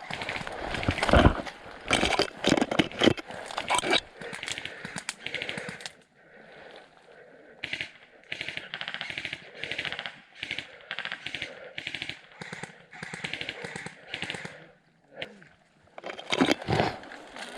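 Airsoft rifle fire: short bursts of rapid, evenly spaced shots, repeated many times over about ten seconds. Before them come several loud, irregular knocks and thuds.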